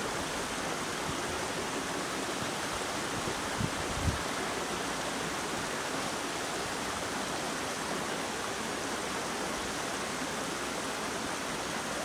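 Shallow stream running steadily over rocks. Two brief soft thumps come about three and a half and four seconds in.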